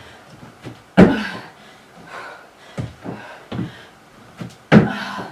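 Box jumps onto a plyo box: two loud landing thuds about four seconds apart, with softer thumps in between.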